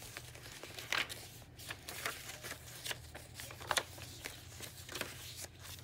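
Paper pages of a handmade junk journal being turned and handled, giving soft rustles and flicks at irregular intervals over a faint low hum.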